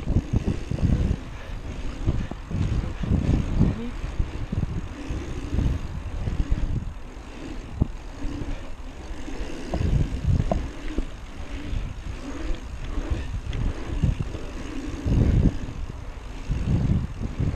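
Wind buffeting a chest-mounted camera's microphone as a Merida One-Twenty mountain bike rolls fast over an asphalt pumptrack: a heavy, gusty rumble mixed with tyre noise on the asphalt, surging and easing with the rollers and berms. A few sharp clicks from the bike come through.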